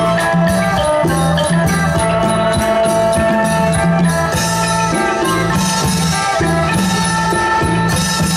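Isan pong lang folk ensemble playing live, melodic instruments over a steady drum beat.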